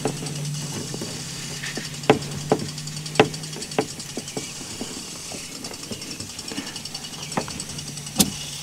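Scattered sharp clicks and knocks of A/C manifold-gauge hose couplers being handled at a semi truck's air-conditioning service ports as they are taken off, over a steady low hum.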